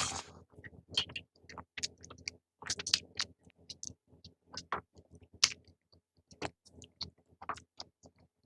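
A person eating at close range, with chewing and wet mouth clicks and smacks coming at an irregular pace.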